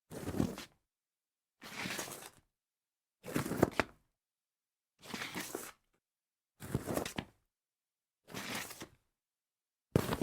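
A series of separate short slides of an object across a tile surface, each scrape lasting under a second, six in a row about a second and a half apart, with a seventh starting at the end. A couple of the slides carry a faint squeak.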